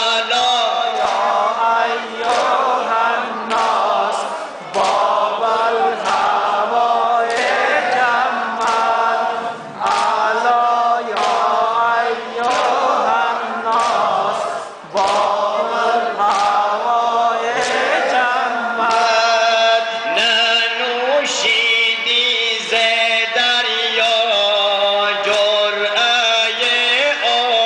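A man chanting a Shia mourning lament (noha) for Imam Husayn, reading from a book into a microphone so that his voice comes amplified. Sharp beats recur roughly once a second behind the voice.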